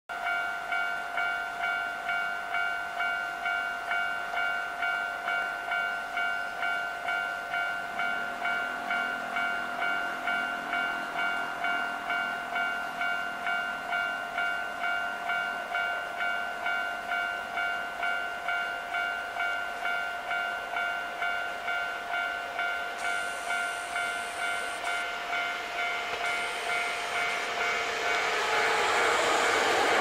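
Railway level-crossing alarm ringing a steady repeating electronic clang, about one and a half strokes a second. The running noise of an approaching Hankyu 5300-series electric train grows over the last few seconds and begins to drown the bell.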